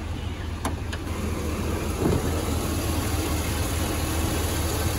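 GMC heavy-duty work truck's gasoline V8 idling steadily and quietly, with a single click a little under a second in.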